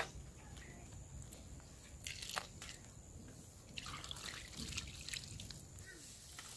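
Water poured from a mug splashing and dripping over raw fish pieces on a banana leaf as they are rinsed by hand; faint, in a few short splashes about two seconds in and again around four seconds in.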